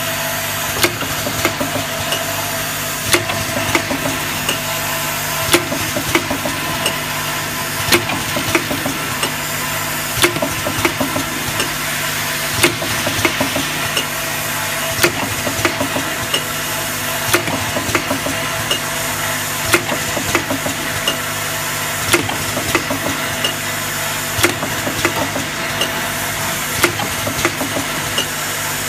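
Eye drop bottle filling and capping machine running: a steady hum and hiss with a sharp clack about every 1.2 seconds, the machine's regular working cycle.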